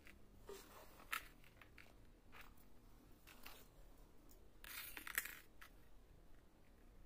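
Faint clicks and rustles of cardboard jigsaw puzzle pieces being handled, pressed together and set down on a wooden floor. There is a sharp click about a second in and a louder flurry of rustling and clicks around five seconds in.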